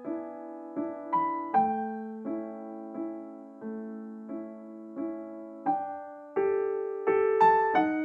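Background piano music: soft chords and single notes struck every half second to a second, each ringing and fading before the next.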